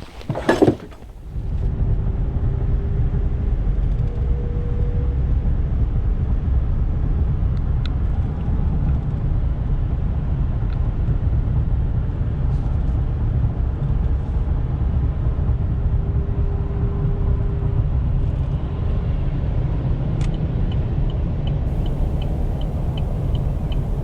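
A motor vehicle driving with a steady low engine and road rumble. A fast, light ticking starts near the end.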